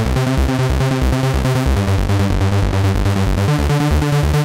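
Electronic music: sustained synthesizer chords over a steady, pulsing bass beat.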